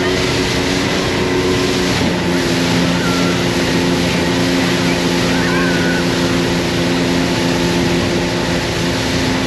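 Motorboat engine running steadily under load while towing two tubes, with rushing wake water and wind over it. The engine note shifts slightly about two seconds in.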